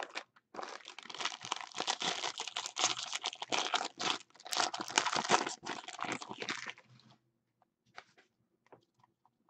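Foil wrapper of a jumbo baseball card pack crinkling and tearing as it is handled and ripped open. A dense run of crackles stops about seven seconds in, followed by a few faint ticks.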